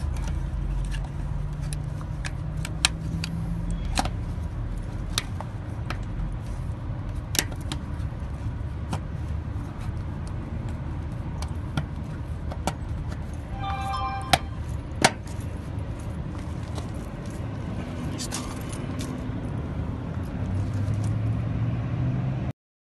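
Scattered clicks and knocks of hard plastic and metal parts being handled while a trailer light is fitted into its rubber grommet, with a brief squeak about 14 seconds in, over a steady low rumble. The sound cuts off suddenly near the end.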